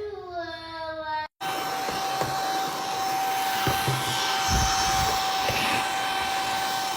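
An electric fan motor running steadily, with a constant whirring tone over rushing air. It follows a child's singing voice, which breaks off about a second in.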